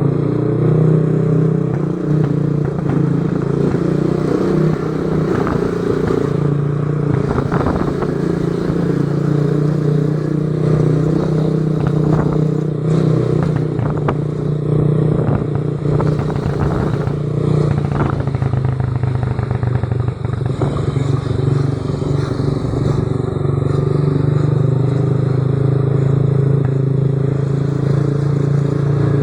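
Motorcycle engine running at a steady speed, with irregular clicks and rattles over it: the strange noise that the owner is recording.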